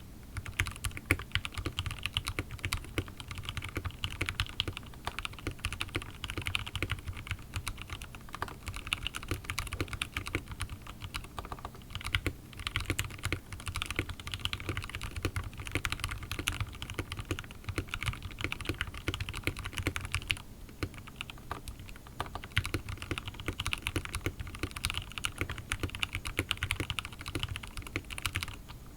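Continuous fast typing on a Royal Kludge RK61 mechanical keyboard with Gateron Red linear switches lubed with Krytox 205g0, a rapid stream of key clacks with brief pauses about twelve and twenty seconds in.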